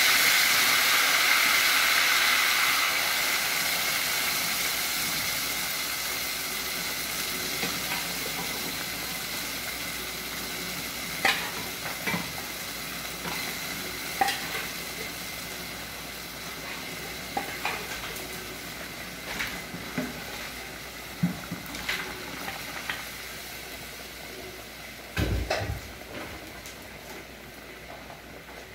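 Cooked beans and their broth sizzling as they are ladled into hot oil with browned garlic. The hiss is loudest at the start and fades gradually as the pan fills. Scattered sharp clicks of the metal ladle against the aluminium pots are heard, with a heavier knock near the end.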